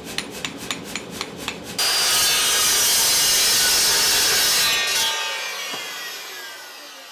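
Quick hammer blows on steel, about four a second, then a power grinder grinding steel, likely putting a bevel on the forged hardy shank for a weld. Near the end the grinder's pitch falls as it winds down.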